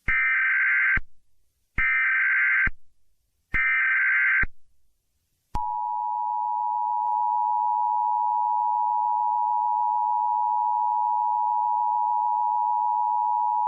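Emergency Alert System SAME header: three bursts of warbling data tones, each about a second long, with short gaps between them. About five and a half seconds in, the long, steady EAS two-tone attention signal begins.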